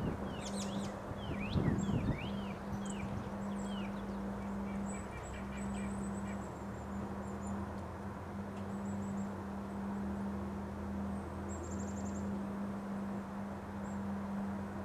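Wind blowing, with two strong gusts buffeting the microphone near the start. Birds chirp, a quick run of calls in the first few seconds, then scattered high chirps, over a steady low hum.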